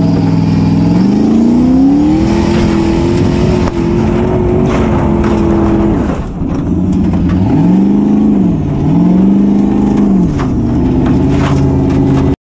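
Formula Offroad buggy's engine heard from the cockpit, revving up and holding high, then dropping and surging up and down twice, with scattered knocks of gravel hitting the car. The sound cuts off suddenly near the end.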